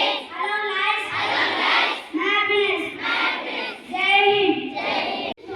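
A group of children singing together in held, sustained phrases. The sound drops out sharply for a moment near the end.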